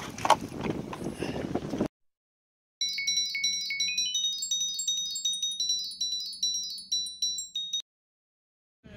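A tinkling, wind-chime-like jingle added in editing: a quick rising run of high bell-like notes, then a sparkling repeating pattern over a low hum, lasting about five seconds and framed by dead silence. Before it, a couple of seconds of outdoor wind and handling noise.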